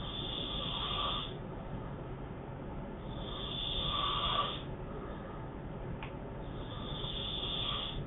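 A sleeping man snoring, each breath swelling and fading, three of them about three and a half seconds apart.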